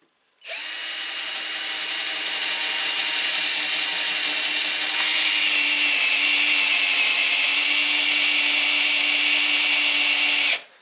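Battery-powered cordless drill/driver boring a twist bit into a block of wood, its motor running at a steady speed. The torque clutch is set to maximum, so the bit keeps turning without the clutch slipping. The motor starts about half a second in, stops near the end, then runs again briefly.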